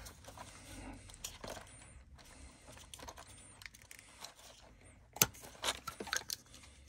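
Scattered light clicks and rattles of small plastic-and-metal 12-volt cigarette-lighter sockets being handled among loose parts in a plastic organiser compartment, with a sharper click about five seconds in and a few more just after.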